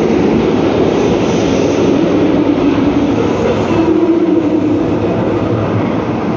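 Metro train running: a steady, loud rush of train noise.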